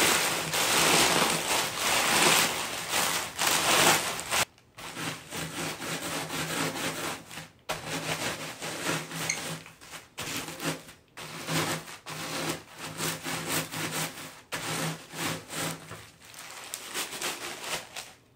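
Saltine crackers being crushed inside a plastic zip-top bag: first squeezed by hand with loud crinkling and crunching of bag and crackers. About four seconds in, a wooden rolling pin takes over, rolled over the bag in a series of passes a second or two apart, each a grinding crunch over a low rolling rumble.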